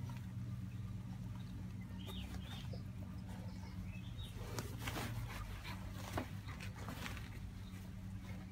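Young tiger squirming and rolling on artificial turf: scattered short rustles and scrapes, mostly in the second half, over a steady low hum, with a few brief high chirps.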